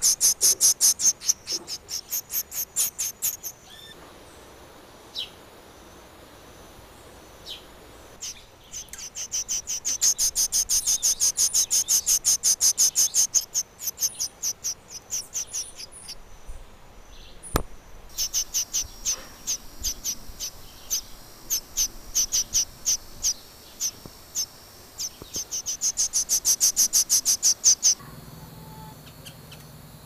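Baby bird's begging calls: rapid, high-pitched chirps, several a second, in three long bouts with pauses between. This is a hungry nestling begging to be fed.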